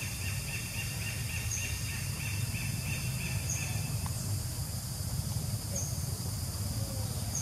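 Outdoor forest ambience with chirping wildlife: a rapid pulsing trill that stops about four seconds in, and short high chirps about every two seconds, over a steady low hum.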